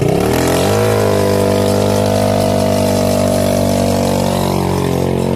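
Quad bike engine revving up over the first second, then held at steady high revs under throttle, easing slightly near the end.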